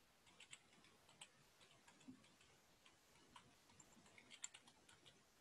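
Faint typing on a computer keyboard: irregular key clicks, bunched most closely about four seconds in.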